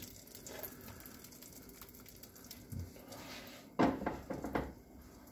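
A frying pan set down on a gas hob's metal grate with a clatter about four seconds in, followed by a few quick knocks of the pan and spatula.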